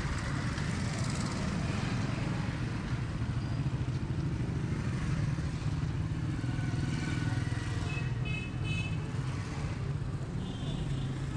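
Motorcycle traffic on a busy street: engines running steadily close by, with a brief high, horn-like tone about eight seconds in.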